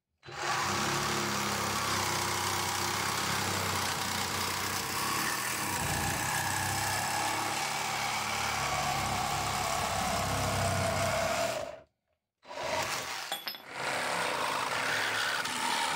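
Hychika 20V cordless reciprocating saw with a metal-cutting blade sawing through a rusty threaded pipe, a steady loud running rasp that stops abruptly about 12 seconds in. After a short break the saw starts again briefly, pauses, and runs on, cutting into a weathered pallet board.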